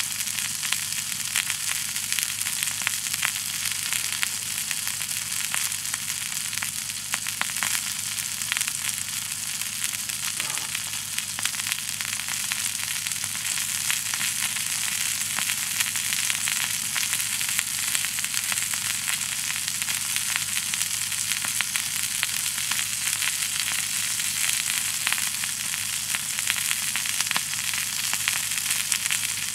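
Food frying in a skillet over a campfire: a steady sizzle with a dense, fine crackle.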